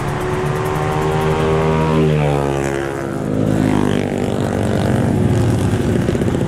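Crypton 135 underbone motorcycle's engine running on the move, heard from the riding position with wind noise. Its pitch slides down about two to three seconds in as the revs drop, then holds steady.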